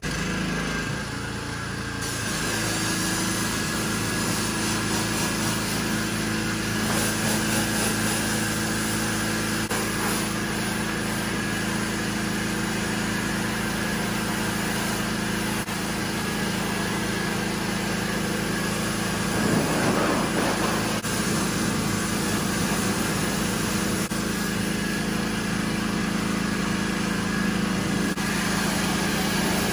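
Pressure washer's small engine running steadily while its spray wand jets water onto a foam-covered car, with the hiss of the spray.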